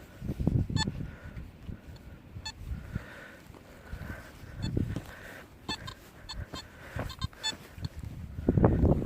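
Nokta Makro Simplex metal detector giving short, high beeping target tones several times, most often in a run about six to seven seconds in. Beneath them is rustling and knocking, loudest near the end.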